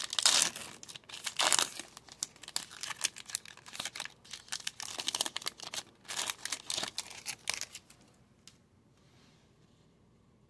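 Trading-card pack wrapper being torn open and crinkled by hand, a dense run of crackling and tearing for about eight seconds that stops well before the end.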